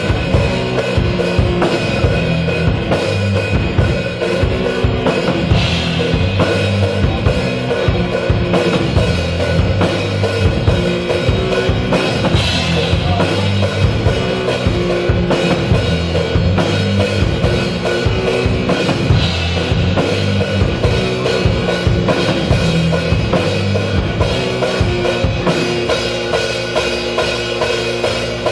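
Rock music with a full drum kit, bass and guitars playing steadily, with no vocals.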